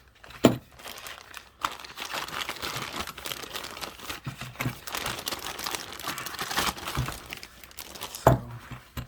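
Packaging crinkling and tearing as it is pulled off by hand, with a sharp knock about half a second in and another near the end.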